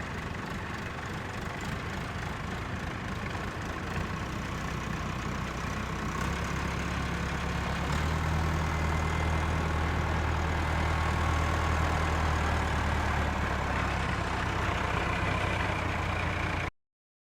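Tractor engine running steadily while pulling polypipe irrigation line out of a field, growing louder about four seconds in and again about eight seconds in. The sound cuts off suddenly near the end.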